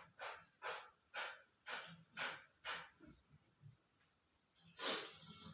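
Kapalbhati breathing: about six quick, forceful exhalations through the nose at roughly two a second, then a short pause and one longer, louder breath near the end. It is done after a jal neti nasal rinse to drive the leftover water out of the nose.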